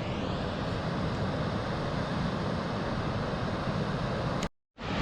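Running Eagle Falls' water rushing in a steady roar, cut to silence for a moment near the end.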